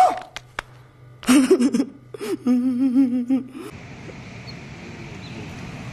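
A man's voice from an inserted film clip: a short exclamation, then a long, wavering, trembling vocal note lasting about a second. After it cuts off, a steady faint outdoor background hiss.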